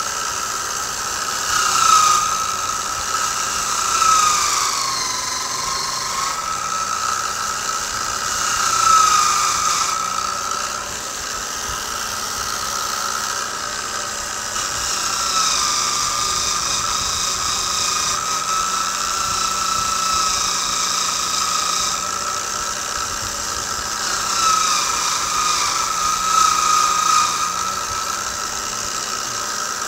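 Electric motor spinning a fine wire carding wheel, running with a steady whine whose pitch dips several times as the rust-blued rifle barrel is pressed against the wheel, with the wires scratching over the metal. This is the carding stage of rust bluing, brushing off the loose oxide after steaming has turned the rust layer to black magnetite.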